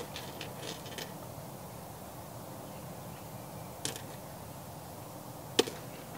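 A few light clicks and taps from tools and parts being handled under a car's dashboard, with one sharper click about five and a half seconds in.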